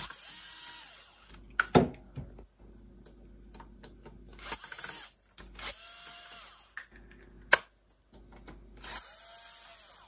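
Cordless drill-driver backing out screws from a cassette deck's metal chassis in several short runs, its motor whine rising and falling as it spins up and down. Two sharp clicks between the runs are the loudest sounds.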